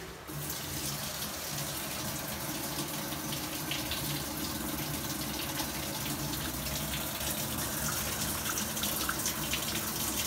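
Whirlpool top-load washer filling its tub with water through the inlet valve at the start of a quick-wash cycle: a steady rush of running water that starts suddenly, with a faint low hum beneath it.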